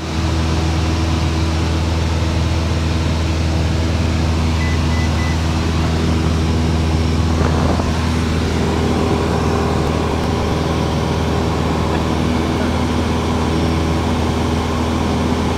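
Cessna 172 Skyhawk's piston engine and propeller droning steadily in flight, heard inside the cabin.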